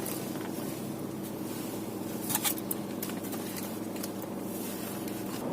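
Camera packaging being handled as the camera is taken out: light rustling, with a few sharp clicks about two and a half seconds in, over a steady low hum.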